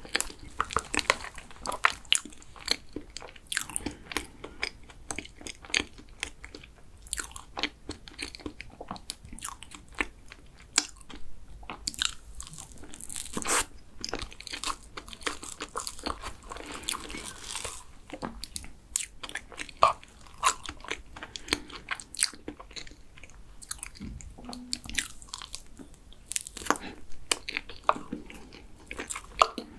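Close-miked chewing and wet mouth sounds of someone eating a cookies-and-cream box cake, with short sharp clicks and scrapes of a plastic spoon in the plastic cake box.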